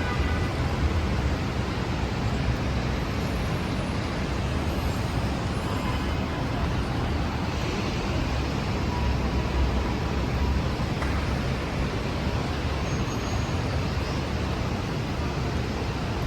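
Steady city street traffic noise: a low rumble of engines with an even hiss over it.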